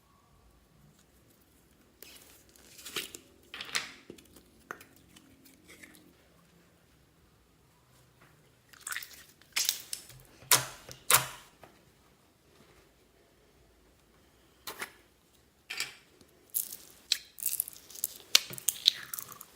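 Slime being squeezed and poked by hand, giving short clusters of crackling, popping clicks with quiet pauses of a few seconds between them.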